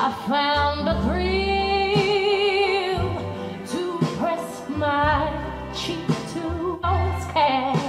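A pop song with a female singer holding long notes with vibrato over a steady bass line, played back through a pair of 1991 MB Quart 800 hi-fi loudspeakers.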